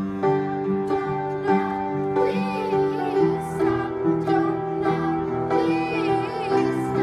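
Upright piano playing a show-tune accompaniment in a steady rhythm, with a girl's singing voice over it in places.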